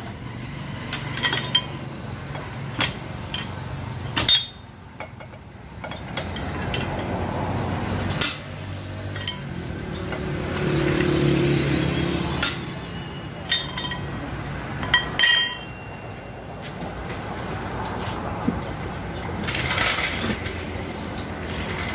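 Metal hand tools clinking and knocking while the front wheel is taken off, with sharp ringing clinks scattered throughout. A low rumble runs underneath and swells near the middle.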